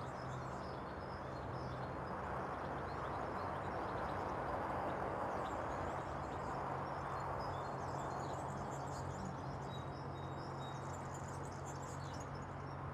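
Faint outdoor background: a steady low hum under a wash of noise that swells a little in the middle, with small birds chirping now and then.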